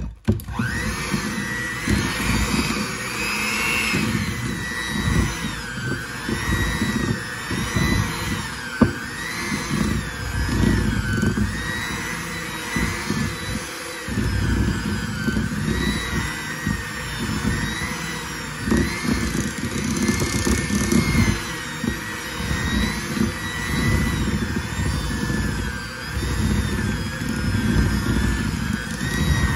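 Electric hand mixer switched on and running, its twin beaters churning a thick peanut butter and powdered sugar mixture in a glass bowl. The motor's whine wavers up and down as the beaters labour through the stiff mixture, with one sharp click about nine seconds in.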